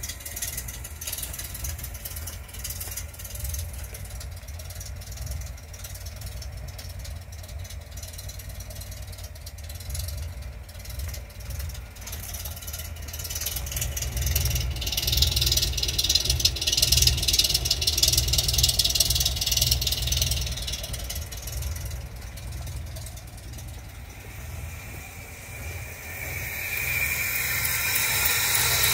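Cammed Chevrolet 292 inline-six engine idling, a steady low rumble. A hiss swells for several seconds about halfway through, and near the end the sound grows louder with a high whine over the engine.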